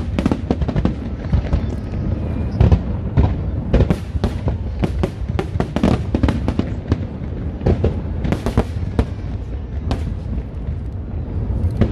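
Aerial fireworks going off in rapid succession: a dense, irregular string of bangs and crackling reports, several a second, over a steady low rumble.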